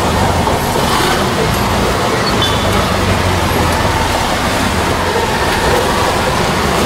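Auto-rickshaw engine running steadily, heard from inside the open passenger cabin, with traffic and road noise around it.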